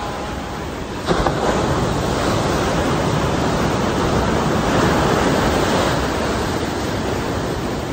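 Ocean surf breaking and washing up a beach: a steady rushing wash, with a wave crashing about a second in and a surge that swells through the middle and eases toward the end.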